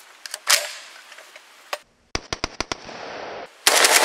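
Saiga-12 semi-automatic shotgun bump-fired with a Fostech Bumpski stock: a few single shots in the first second, a quick string of about seven shots around two seconds in, then a fast, sustained string of shots starting near the end.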